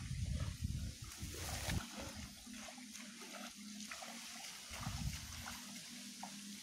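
Outdoor ambience beside a muddy swamp pool: an irregular low rumble of wind on the microphone for the first two seconds or so, then a faint steady low hum with light trickling and sloshing of water.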